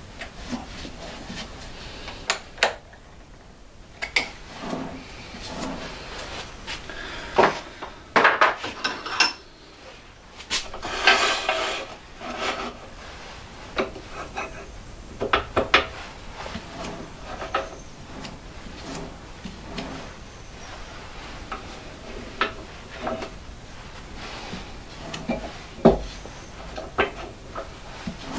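Handling noises at a wood lathe: scattered clicks and knocks of metal parts and wood being set in place, with a stretch of scraping and rubbing about eleven seconds in.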